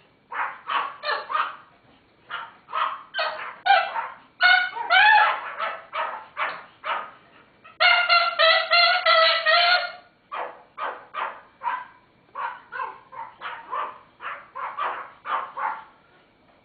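Teacup Pomeranians yapping in quick short barks, about three a second, with a cockatoo mimicking their barking. About eight seconds in, one long steady call is held for about two seconds before the barking resumes.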